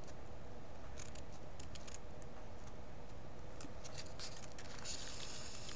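Hand sewing: faint scattered clicks and rustles of a needle and thread working through fabric, with a brief scratchy hiss about five seconds in as the thread is drawn through.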